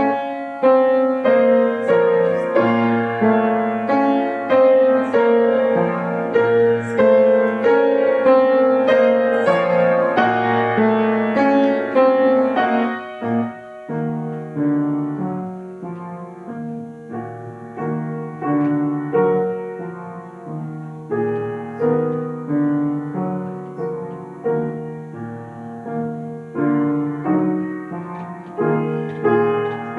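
Solo piano playing a classical piece: a loud passage of chords reaching into the high register, then, after a brief break about halfway, a softer passage that stays lower.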